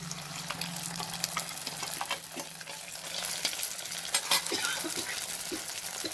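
Ground masala paste sizzling as it hits hot sesame oil and sautéed shallots in a clay pot, while a steel ladle stirs it, with frequent clicks and scrapes of the ladle against the pot.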